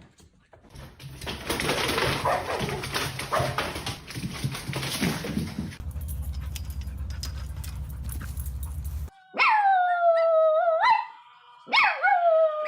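A dog giving long, drawn-out cries in the last few seconds, twice, each starting high and sliding down before holding steady. Before them comes a stretch of rough noise, then a steady low hum.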